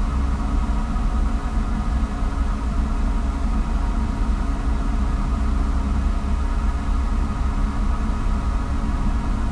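Cessna 172's four-cylinder piston engine running steadily at low taxi power, mixture leaned for taxi, heard from inside the cabin as an even low drone.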